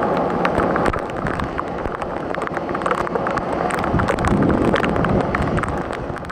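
Heavy, wind-driven rain: a dense hiss of downpour with wind buffeting the microphone, many sharp ticks of drops striking close by, and a low rumble underneath. It fades out at the very end.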